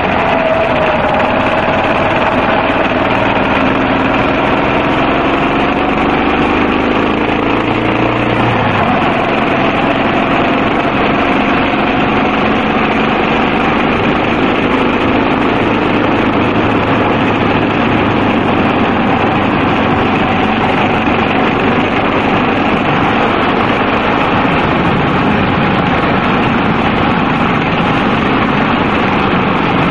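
Yamaha XT250 single-cylinder four-stroke engine running under way, mixed with a steady rush of noise. The engine note shifts with the throttle and changes abruptly about nine seconds in, then holds steadier.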